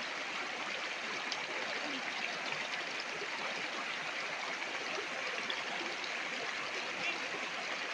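Shallow river rushing steadily, water breaking and splashing around a person sitting in the current.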